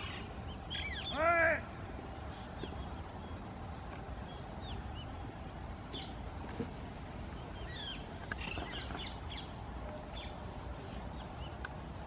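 A flock of Alexandrine parakeets calling. One loud, harsh call comes a little over a second in, followed by scattered short, high squawks and chirps, with a quick run of them between about eight and nine and a half seconds in.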